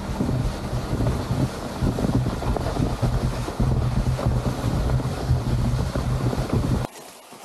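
Loud gusting wind buffeting the microphone in heavy rumbling waves, cutting off suddenly near the end.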